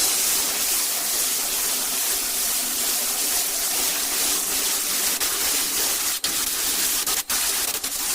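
Steady, even hissing spray, broken by two brief dropouts about six and seven seconds in.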